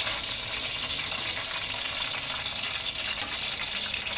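Whole spices (cinnamon sticks, star anise, black peppercorns, cardamom and cloves) sizzling in hot oil as they are tipped in: a steady hiss.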